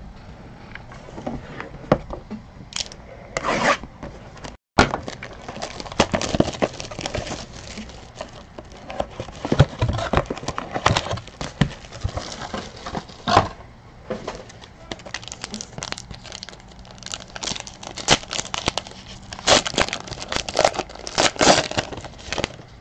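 Trading card packaging being handled and opened by hand: irregular crinkling, crackling and tearing of wrapping and a foil card pack.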